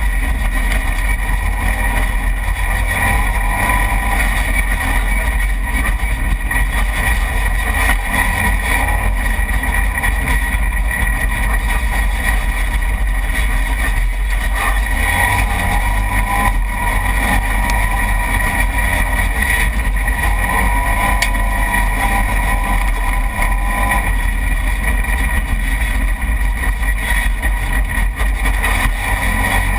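Side-by-side UTV engine running hard at speed over a dirt trail, with heavy wind rumble on the hood-mounted camera. Steady and loud throughout, with no let-up.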